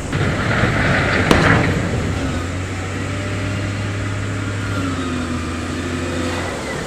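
Heavy diesel construction machinery running steadily with a low, even engine hum. In the first second or so there is a burst of hiss and a sharp click.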